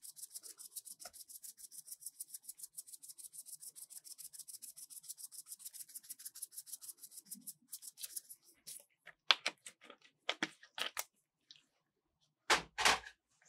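Sprinkles rattling inside a small plastic shaker bottle as it is shaken quickly over whipped cream, a fast even rattle of about eight shakes a second that stops after about eight seconds. Scattered clicks follow, then two louder knocks near the end.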